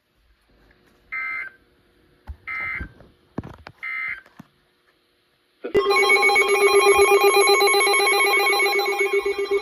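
Emergency Alert System SAME data header: three short, buzzy digital data bursts about a second apart. About a second and a half after the last one, a loud trilling alert tone starts and keeps going, announcing a new weather warning.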